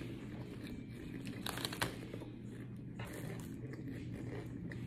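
Close-up mouth sounds of chewing a mouthful of shrimp fried rice: wet, crackly clicks and smacks, densest about a second and a half in and again around three seconds, over a steady low room hum.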